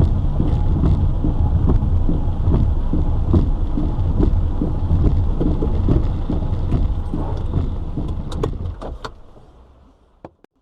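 Heavy monsoon rain drumming on a moving car, over a steady low rumble of the car and road. The sound fades out near the end.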